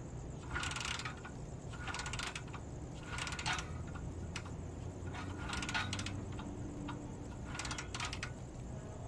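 Short bursts of rapid mechanical clicking, each about half a second long, repeating every second or two over a steady low rumble.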